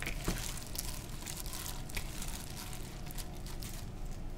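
A plastic-gloved hand kneading and tossing cockles and shredded radish in a red pepper dressing in a plastic bowl: a steady run of crinkling from the disposable glove, with soft rustling of the wet, dressed food.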